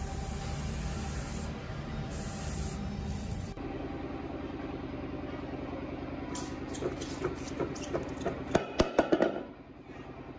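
Car engine running steadily. After an abrupt change it runs on with a fast, even pulse, and a string of sharp clicks and knocks comes in the last few seconds.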